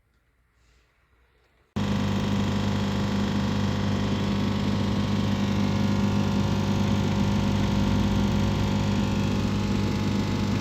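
Engine running steadily at idle, cutting in abruptly about two seconds in after near silence.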